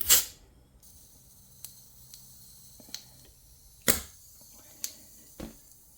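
A short, loud spray of green gas as an airsoft pistol's gas magazine is charged, then a faint steady hiss of gas escaping from a small leak. Light clicks and three sharper knocks come from handling the pistol near the end.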